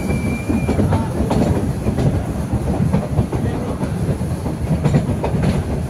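Metre-gauge heritage train running, heard from an open coach window. The coaches give a steady rumble, with a quick clickety-clack of the wheels over the rail joints.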